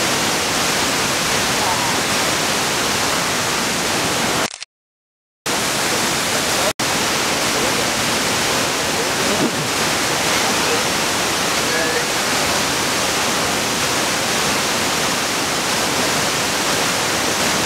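Steady, loud rush of a waterfall, with faint voices under it. The sound cuts out completely for about a second, about four and a half seconds in, then resumes.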